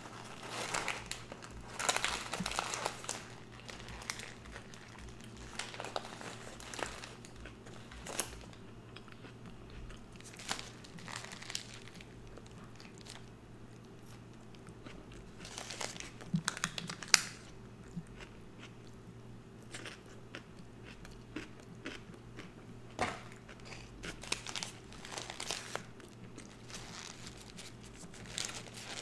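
Paper burger wrapper crinkling as it is peeled back, then close-up biting and chewing of a cheeseburger with grilled and raw onions, with scattered rustles of the wrapper between bites.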